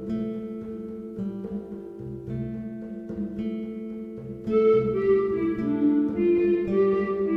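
Instrumental background music with plucked guitar-like notes over held chords and a bass line, growing louder and fuller with a higher melody about four and a half seconds in.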